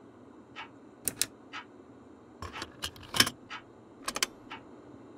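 Scattered clicks of a cassette boombox's keys and controls being pressed, coming singly and in small quick clusters.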